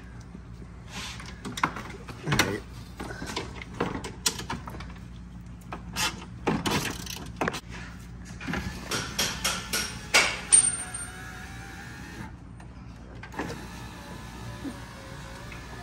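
Ratchet clicks and knocks of tools working on a 2012 Ford Expedition's front door over the first ten seconds or so. Then the power window motor runs the glass on the newly replaced regulator, with a faint steady whine: the auto-up function working again.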